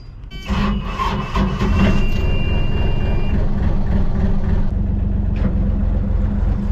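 Narrowboat's Yanmar diesel engine starting about half a second in and settling into a steady, pulsing idle. A high steady tone sounds over it for the first few seconds, then stops.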